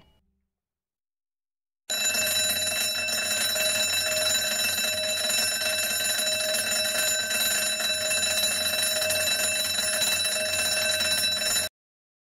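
Electric burglar alarm bell ringing continuously, starting about two seconds in and cutting off suddenly near the end.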